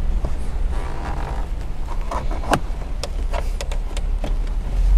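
Plastic trim removal tool scraping and prying at the plastic dashboard trim of a car's centre console, with scattered sharp clicks and creaks as the trim clips are worked. A steady low hum runs underneath.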